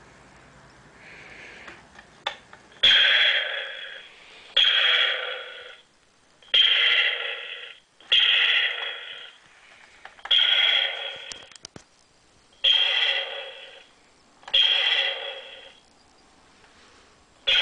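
Recorded sci-fi blaster "pew" sound played back from a digital voice recorder's small speaker inside a modified Nerf blaster, triggered over and over about every two seconds, each shot starting sharply and fading over about a second. Short clicks come between several of the shots.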